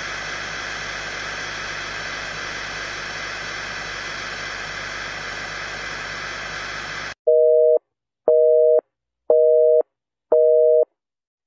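Steady hiss of static for about seven seconds, then four loud half-second beeps about a second apart, each a two-tone beep like a telephone busy signal, as countdown beeps over a film-leader countdown.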